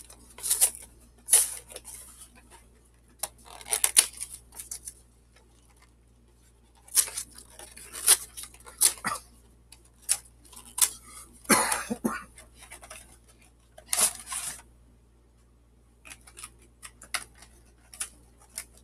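Pokémon trading-card box being unwrapped and opened by hand: crinkling plastic wrap and cardboard rustles in short crackling bursts, with a couple of brief pauses and one louder rustle about two-thirds of the way through.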